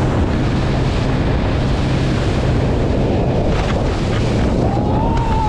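Small fishing skiff's motor running steadily under heavy wind buffeting on the microphone and rushing water.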